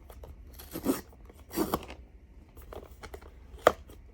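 Cardboard blind box being torn open and handled: two short rustling tears about a second apart, then a single sharp click near the end.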